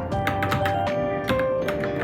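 Typing on a Varmilo Minilo mechanical keyboard: quick, uneven key clicks, about five a second, over background music with held notes.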